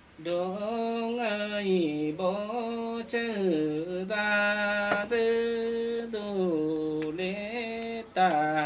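A voice singing a Nùng folk song in the call-and-response style, holding long notes that slide up and down in phrases broken by short breaths.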